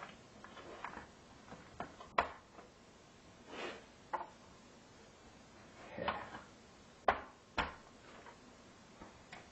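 Hand tools and metal parts being handled on a workbench around an amplifier's steel chassis. There are scattered sharp clicks and knocks, the loudest about two seconds in and twice near seven to eight seconds, with a few short scrapes between them.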